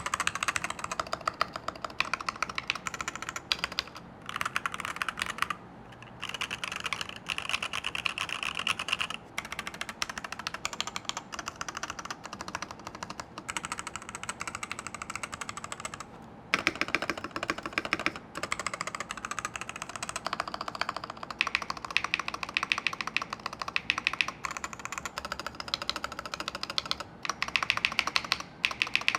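Fast typing on a Varmilo VA87M tenkeyless mechanical keyboard: a dense run of keystroke clacks, broken by a few short pauses.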